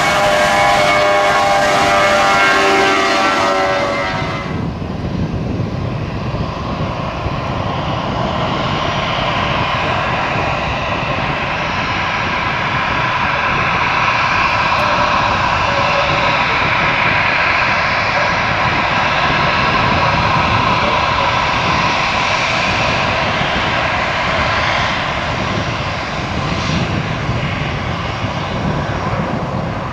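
Airliner jet engines at takeoff power: a climbing Airbus A320 passing with a loud whine of several tones. After a cut about four seconds in, an Airbus A319's engines run with a steady roar and whine as it rolls down the runway.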